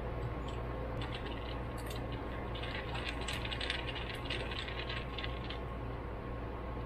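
Small metal carburetor parts clicking and clinking as they are handled, with a cluster of quick light taps in the middle, over a steady low hum.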